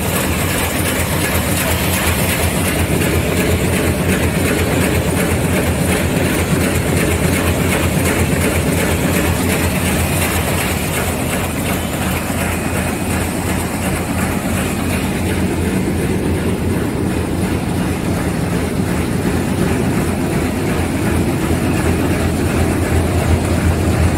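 Automatic thread book sewing machine running, a fast, steady mechanical clatter.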